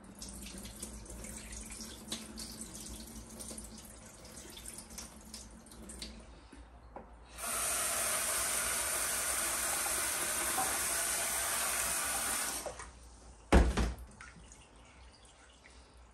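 Kitchen tap running into a sink for about five seconds, then shut off, with a single sharp knock just after, the loudest sound. Before the tap opens fully there is softer water with small clicks.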